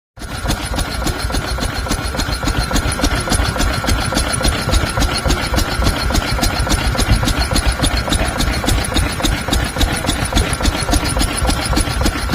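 A 1925 steam engine used to pump well water runs at a steady pace, with a rapid, even beat and a constant high tone over it.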